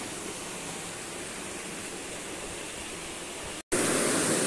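Shallow river water rushing over rocks, a steady hiss. It drops out for an instant about three and a half seconds in, then comes back louder and closer.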